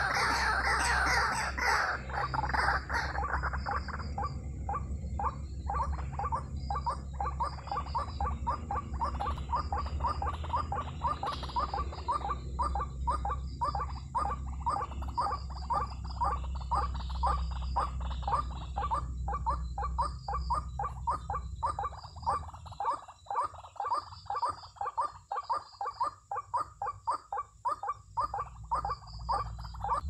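White-breasted waterhen calling: a rapid, even string of croaking notes, about three a second. The calls are loudest and fullest in the first few seconds.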